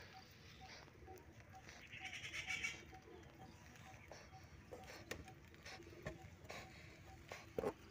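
A brooding white pigeon, disturbed on its eggs in a wooden nest box, making quiet angry grunting sounds, with a short hissing puff about two seconds in.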